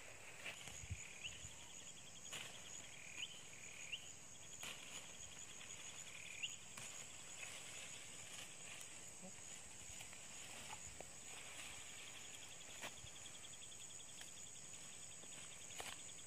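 Steady high-pitched insect drone with a faster pulsing insect trill that comes and goes, and a few short chirps. Over it, scattered faint snaps and rustles as leafy local spinach (bayam) stems are cut by hand with a small knife.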